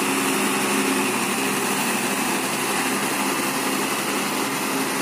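Tractor diesel engines running steadily under load, pulling a loaded trolley through mud.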